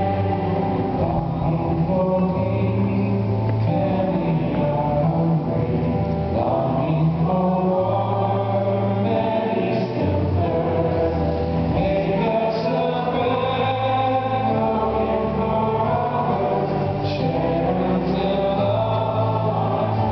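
A choir sings a hymn with instrumental accompaniment, a steady, continuous stretch of sustained notes over a bass line that changes every couple of seconds, amplified through a large arena's sound system.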